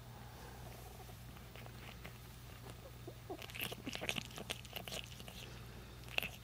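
Short-haired Persian cat purring softly while its chin is scratched. About halfway through comes a run of quick small wet clicks as it licks and mouths the fingers, with one sharper click near the end.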